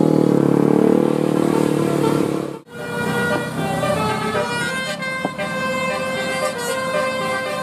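Indonesian bus 'telolet' musical air horn: several tones sounding together, held and changing in steps as it plays a tune. Before it, a louder, lower-pitched sound cuts off abruptly about two and a half seconds in.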